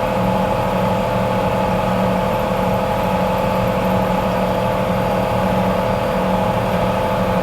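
A motor running at a constant speed: a steady hum of several held tones with an even whirring hiss above, with no change in pitch or level.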